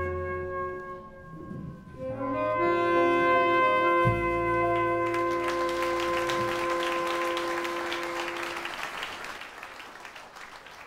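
Band music with held brass and woodwind chords. It moves to a final chord about two seconds in, with a low hit about four seconds in. A noisy wash rises over the held chord and fades out with it near the end.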